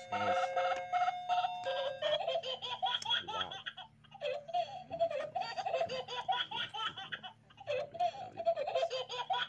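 A short chiming tune of held notes, then high-pitched giggling laughter in quick, bouncing bursts, pausing twice.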